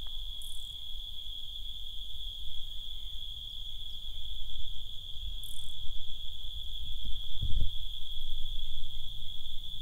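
Night insects trilling in one steady, high-pitched, unbroken drone, over a low rumble of handling noise, with a dull thump about seven and a half seconds in.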